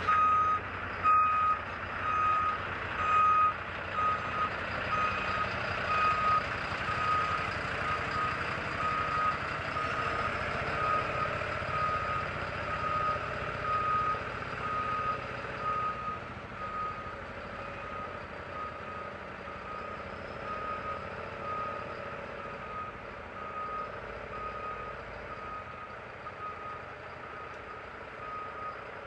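A truck's reversing alarm sounding a steady run of evenly spaced beeps on one tone over engine noise. The beeps grow gradually fainter.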